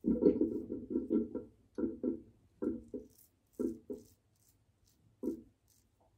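A double-edge safety razor, the King C Gillette, making short strokes across the skin: a quick run of scrapes at first, then strokes in pairs about once a second, with a last single one about five seconds in.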